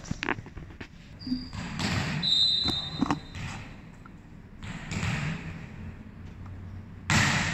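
A ball bouncing and thudding on a hard court floor in a large, echoing covered hall, with a few short scuffs and a brief high squeak about two seconds in.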